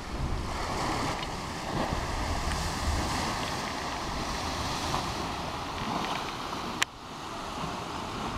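Sea surf washing and foaming in a narrow rocky inlet, with wind rumbling on the microphone. A single sharp click near the end.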